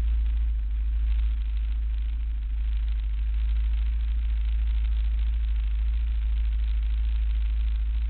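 ATV engine idling steadily, a deep, even rumble with no revving.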